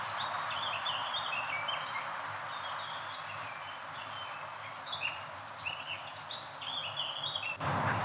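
Shallow brook trickling steadily, with several birds singing over it: short warbling notes and sharp, high double chirps. The sound changes abruptly shortly before the end.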